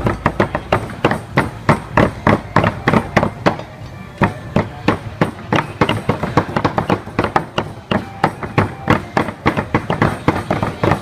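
Cleavers chopping raw pork into mince on thick wooden chopping boards: quick, uneven knocks, several a second, from more than one cleaver at once.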